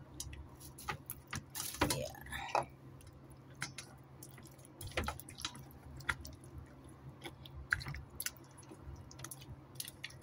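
Hands squishing raw chicken drumsticks in beaten egg in a steel bowl: scattered wet smacks and clicks over a low steady hum, with a louder brief burst about two seconds in.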